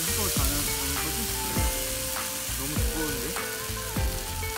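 Potato pancake batter sizzling as it is poured into a frying pan of hot oil, a steady frying hiss.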